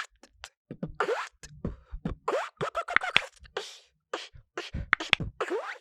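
Mouth-made beatbox routine built on the zipper sound effect: quick rising-pitched squeaks made by sucking air in through a small gap between the lips, mixed with sharp kick-drum and click sounds in a fast pattern.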